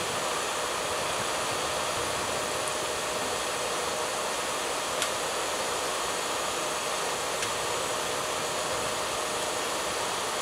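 A steady, even hiss with a faint hum under it, and one small click about five seconds in.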